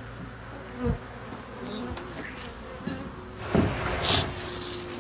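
Honeybee colony buzzing steadily in a toolbox being moved, with a few knocks and thumps of the box being handled, the loudest two a little past halfway.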